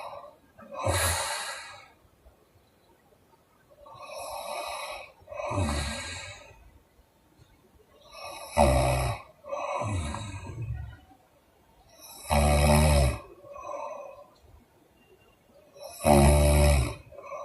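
A woman snoring in deep sleep: a loud buzzing snore about every four seconds, with a softer airy breath between snores.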